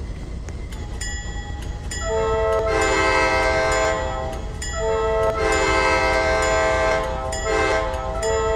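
Multi-chime train air horn sounding in blasts, several notes at once as a chord: a faint tone about a second in, a long blast from about two seconds in, a second long blast about five seconds in, a short one near seven and a half seconds, and another starting near the end. A low rumble runs underneath.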